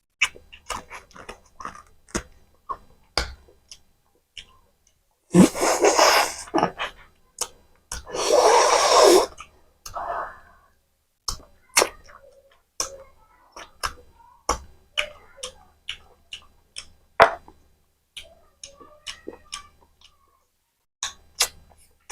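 Close-miked eating of mutton curry with rice and green chilli: a run of wet chewing and lip-smacking clicks, with two longer, louder rushes of noise about five and eight seconds in.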